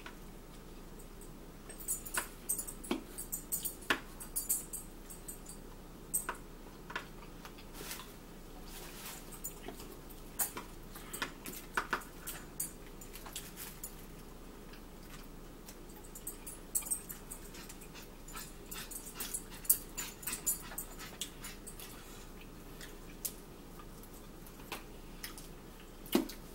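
Eating sounds: metal forks clicking and scraping in plastic takeout containers, with chewing, as a run of short scattered clicks that bunch together in two busier spells.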